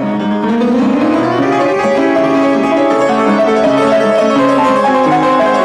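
Upright piano played quickly with both hands: a run of notes rising over the first second or so, then a busy stream of notes and chords.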